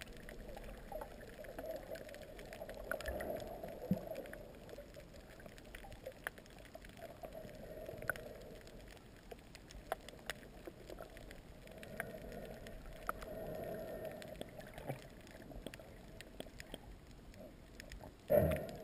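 Muffled underwater sound through a GoPro camera's waterproof housing: a low wash of water that swells and fades, with scattered sharp clicks. A short, louder splashy burst comes near the end.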